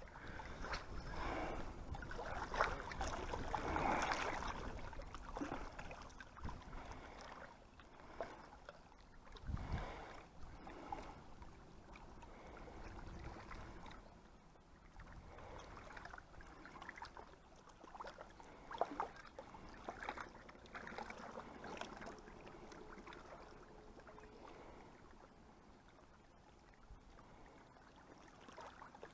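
Faint lakeside ambience: water lapping with light wind, scattered small knocks and rustles, and a single low thump about ten seconds in.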